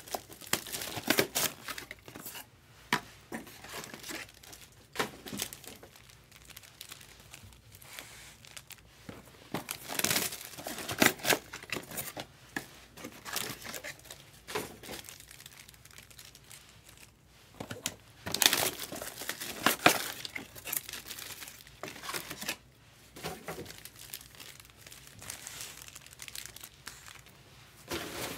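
Bowman Chrome trading-card pack wrappers crinkling and tearing as packs are ripped open and handled, in irregular bursts, loudest about a third of the way in and again about two-thirds through.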